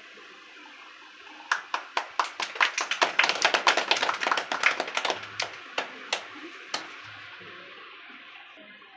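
A small group clapping: scattered claps start about a second and a half in, swell into brief applause, then thin out and stop near seven seconds.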